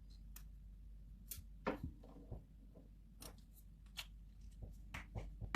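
Faint, irregular small clicks and ticks of a small screwdriver and tiny screws being handled while a compact camera's zoom lens unit is taken apart.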